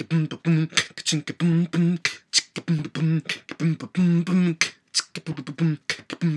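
A man beatboxing a steady rhythm: sharp mouth clicks and snare-like hits alternating with short hummed bass notes.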